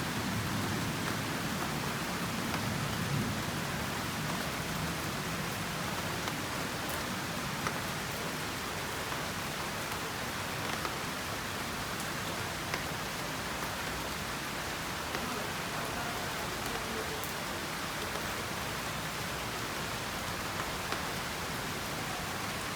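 Steady rain falling, with individual drops tapping now and then. A low rumble fades out over the first few seconds.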